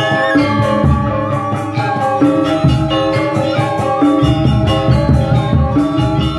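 Balinese gamelan music accompanying a dance: metallophones ringing in quick, busy strokes over steady drum beats.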